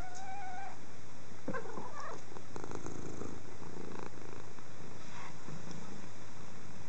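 Domestic cat purring in uneven stretches, with a brief steady high tone right at the start.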